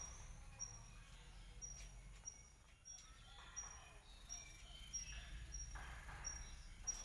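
Faint, short, high-pitched chirps repeating roughly every half second from a small calling animal, with a few softer calls in between over a low background hum.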